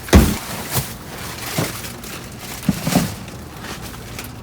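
Salvaged goods and packaging being handled: a loud thump just after the start, then a few lighter knocks and rustles.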